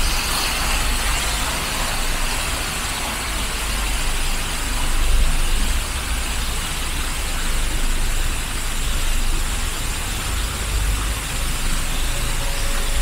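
Steady city road traffic with a deep low rumble, swelling slightly about five seconds in.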